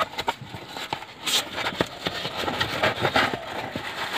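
Cardboard box being handled and its end flap pulled open, giving scratchy rustling with many small irregular clicks.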